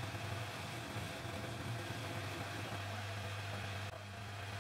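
Homemade metal lathe running, its spindle turning a steel shaft with a steady low motor hum. The level dips briefly about four seconds in.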